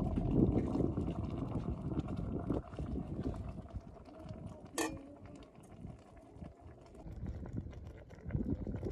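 An enamel mug scooping water out of a boiling three-legged pot over a wood fire: irregular knocks and scrapes, with one sharp clink about five seconds in.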